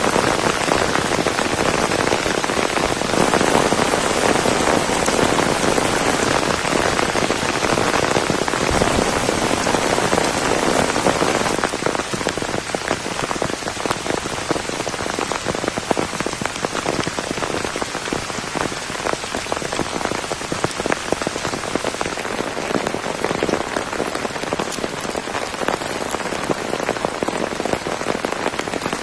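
Heavy rain falling steadily, a dense patter of drops; it eases slightly after about twelve seconds.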